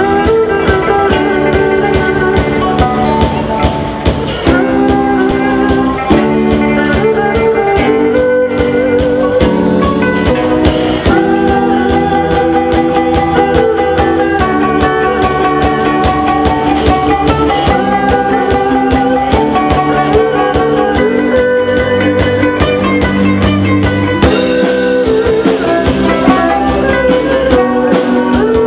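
Traditional Chinese instrumental ensemble playing a tune: plucked pipa and ruan lutes with a bowed erhu and keyboard.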